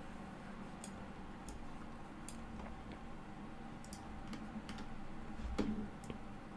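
Scattered single computer mouse clicks, a few seconds apart and sometimes in quick pairs, with a louder click and soft thud a little before the end, over a faint steady low hum.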